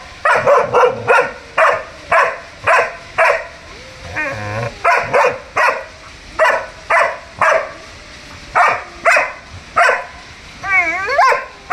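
German Shepherd barking repeatedly and loudly, about two barks a second. Twice a longer, wavering cry breaks in between the barks.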